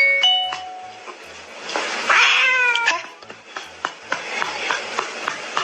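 A cat meowing: one long call that falls in pitch, about two seconds in. Background music with a steady beat and bell-like notes plays throughout.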